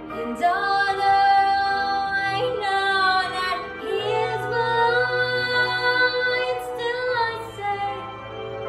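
A woman singing a slow ballad solo over a soft instrumental backing track, her voice entering just after the start with long held notes that waver in a vibrato.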